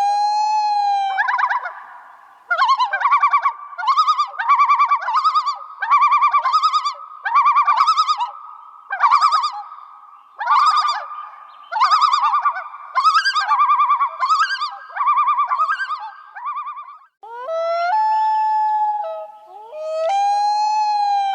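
A bird calling. It holds one long clear note, then gives a long run of short, ringing notes at about two a second, then two more long held notes near the end.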